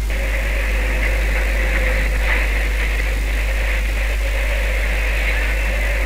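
Boat engine running steadily under way: a constant drone with a deep rumble underneath.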